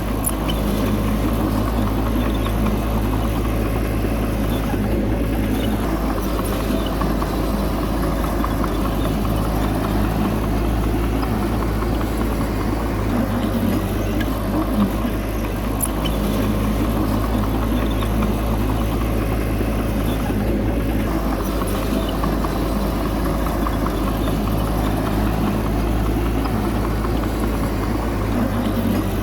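Heavy diesel engine running steadily at an even speed, with a few faint clicks over it.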